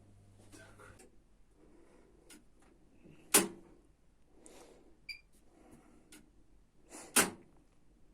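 Two sharp knocks about four seconds apart, with lighter clicks and taps between them and a brief metallic ping near the middle.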